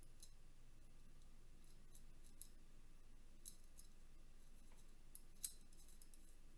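Faint, sharp little clicks and ticks of fingers working a small piece into the edge of a 3D-printed plastic ring part, coming a few at a time, the loudest about five and a half seconds in.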